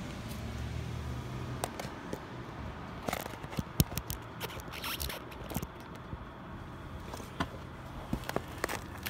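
Empty cardboard shoe boxes being handled and set down on pavement: scattered scrapes and knocks, the sharpest a little under four seconds in. A low hum fades out about a second and a half in.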